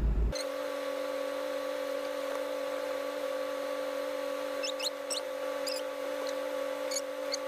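A steady humming drone of two held tones, with a few short high chirps over it about five seconds in and again near the end.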